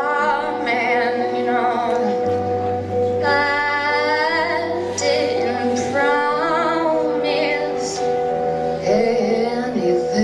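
A woman singing a slow song live, accompanied by electric guitar over sustained chords, with a low bass note that changes every few seconds.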